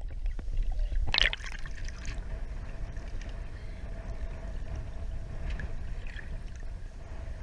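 Water sloshing and lapping against the side of a small boat, with wind rumbling on the microphone. There is a brief splashy burst about a second in, and a faint steady hum later on.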